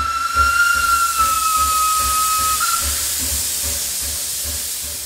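Steam locomotive whistle sounding one long note that sags slightly in pitch and stops about three seconds in, while a loud hiss of escaping steam swells and carries on after it, over a low regular beat.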